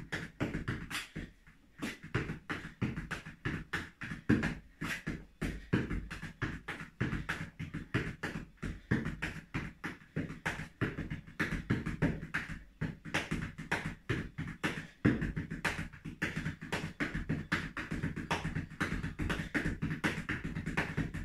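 Flamenco footwork (zapateado) for a seguiriya: quick, uneven heel and toe strikes, several a second, with faint music underneath.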